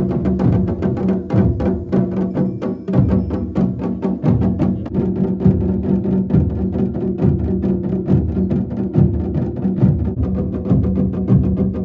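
Traditional temple drumming: drums beaten fast and continuously, with a steady held tone underneath.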